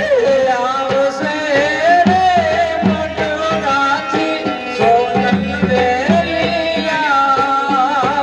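Live Indian folk music amplified through microphones: a harmonium plays a wavering melody over a steady hand-drum beat, with singing.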